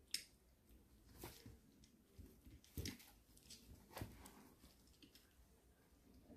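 A kitten pawing and nosing at a cloth-covered bag on a hard floor: a few short, faint rustles and taps, the sharpest right at the start.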